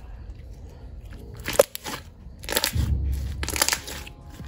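Freshly made white glue slime being pulled and squished by hand, in a few short bursts of sound with the longest and loudest about three seconds in.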